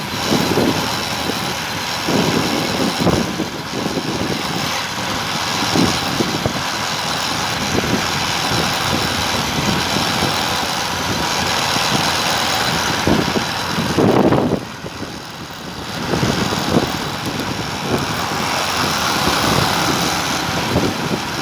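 Riding noise from a homemade electric bicycle driven by a washing-machine BLDC motor under acceleration: wind buffeting the microphone in repeated low thumps over a steady rushing noise, with a faint steady whine. About fourteen seconds in there is a loud gust, then it drops quieter for a couple of seconds.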